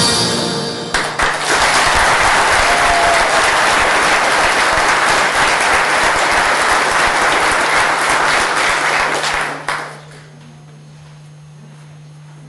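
Bagpipe music stops about a second in and an audience applauds for about nine seconds. The applause cuts off suddenly, leaving a low steady hum.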